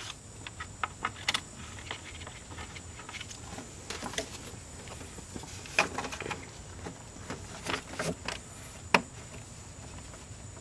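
Scattered light metallic clicks and knocks of small 10 mm bolts and hand tools being handled and fitted around a radiator fan in an engine bay, irregular and spaced a second or more apart.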